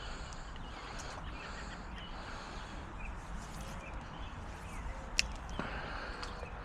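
Steady rush of creek water, with a few faint bird chirps and one sharp click a little past five seconds in.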